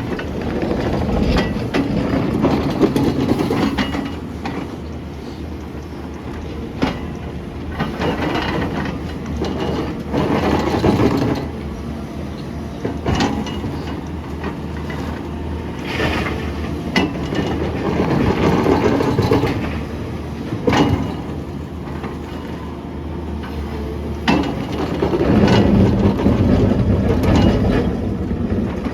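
SANY SY500H hydraulic excavator working with a ripper: the diesel engine runs steadily and swells louder under load every few seconds, with sharp metallic clanks and knocks here and there.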